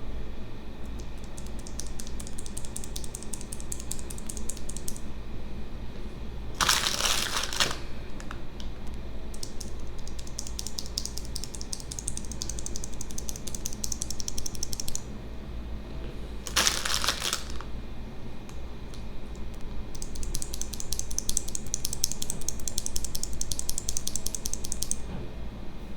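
Typing on a Nuphy Air 96 low-profile mechanical keyboard, in three runs of fast key clicks. Two brief rustling bursts come between them, about a quarter and two thirds of the way in.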